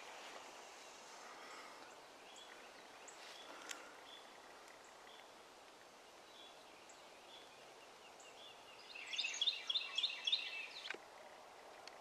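Quiet dawn ambience with faint, scattered birdsong. About nine seconds in, a louder run of quick, repeated high chirping notes lasts about two seconds and ends with a sharp click.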